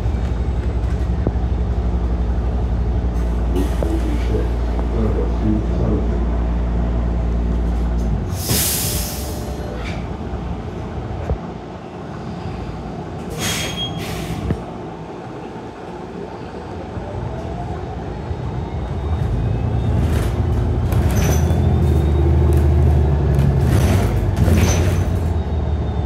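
City bus heard from inside the cabin. The engine hums steadily, then air brakes hiss about a third of the way in as the bus slows, with further air hisses while it sits quieter. Near the end the engine picks up again with a rising whine as the bus pulls away.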